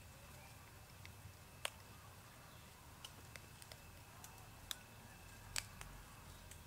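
Faint scattered clicks and ticks from macaques feeding and shifting among grass and dry leaves, with two sharper clicks, one about a second and a half in and one near the end, over a low steady hum.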